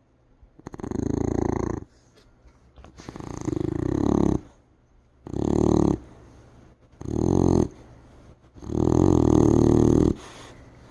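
A beagle snoring in deep sleep: five loud snores, each about a second long and coming roughly every two seconds, the last one the longest.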